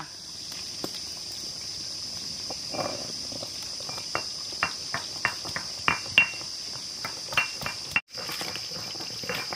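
A stone pestle knocks down again and again on whole spices on a flat grinding stone, a quick, uneven run of sharp stone-on-stone knocks. A steady high drone of insects runs underneath.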